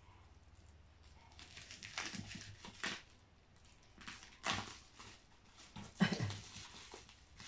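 Plastic bubble wrap crinkling and tearing as it is cut and pulled off a cardboard box, in three bouts about two, four and a half and six seconds in.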